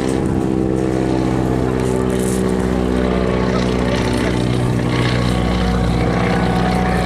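Boeing Stearman biplane's radial engine and propeller droning steadily in flight, a steady, even pitch.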